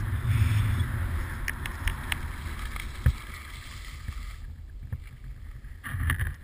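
Skis sliding and scraping over packed snow, with wind buffeting the camera's microphone and a few sharp knocks from the handheld camera pole. The rumble and hiss die down about two thirds of the way through, then swell briefly near the end.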